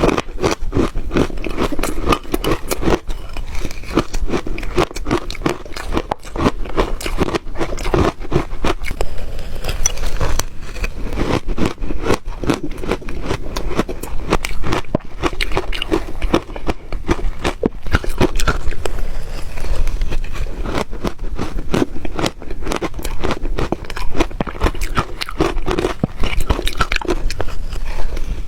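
Ice being bitten and chewed close to the microphone: a dense, continuous run of sharp crunches and crackles, with some scraping.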